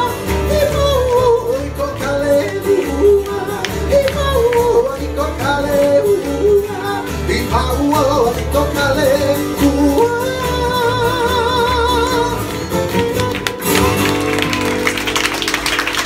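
Live Hawaiian song: singing with a wavering vibrato over strummed acoustic guitars and a steady low beat. About three-quarters of the way through the song ends on a held chord and the audience breaks into applause.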